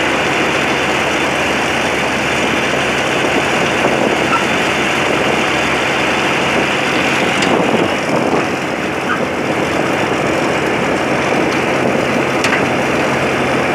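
Tractor engine running steadily as the tractor drives along a road: a constant low engine hum under a loud rushing noise.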